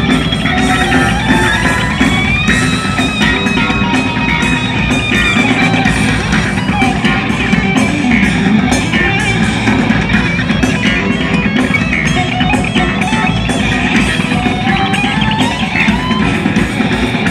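A rock band playing live through a large PA, heard from among the crowd: electric guitar, bass and drums with a steady beat, loud throughout.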